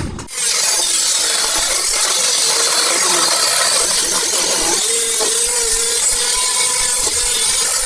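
Power tool cutting or grinding sheet metal and steel, running steadily with a loud, high-pitched hissing grind that starts abruptly just after the beginning.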